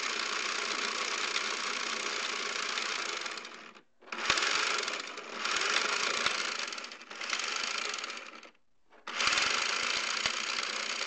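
Air Zone Punisher motorized toy blaster dry-firing with no darts loaded: its battery motor and rotating barrel whirring in a steady mechanical run. It stops about four seconds in, then starts and stops in several shorter bursts as the trigger is pulled again.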